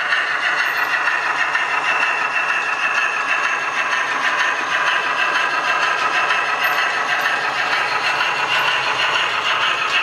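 Model railway locomotive running along the track: a steady electric motor whine that drifts slightly in pitch, with a fine rattle of wheels on the rails.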